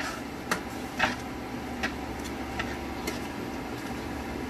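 A slotted spatula stirring a creamy sauce in a nonstick frying pan, with a few light clicks and scrapes against the pan, over a steady low hum.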